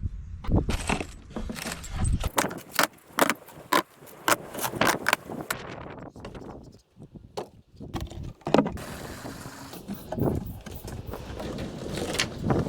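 Rapid clinks and knocks of hand-tool construction work on a wooden shelter frame, with wind rushing over the microphone in the second half.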